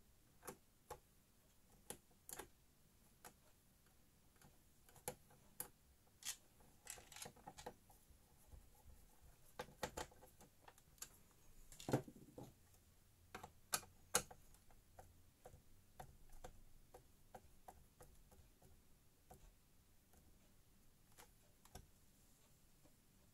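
Sparse, irregular clicks and light knocks of computer parts being handled and fitted back together, with a louder knock about twelve seconds in and another soon after.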